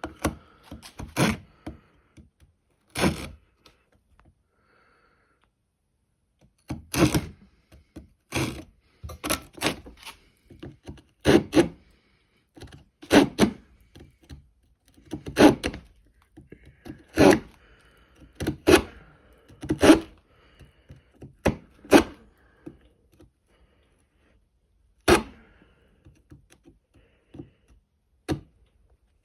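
Folding saw blade of a Victorinox SwissTool multitool cutting into a piece of material in short, separate strokes, spaced about a second or two apart, with pauses in between.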